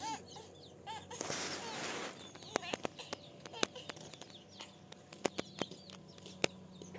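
A short rush of noise, then scattered sharp clicks and taps at irregular intervals, with faint chicken chirps in the background.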